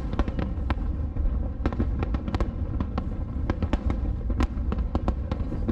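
Aerial firework shells bursting in quick succession: an irregular run of sharp bangs and crackles, several a second, over a steady low rumble.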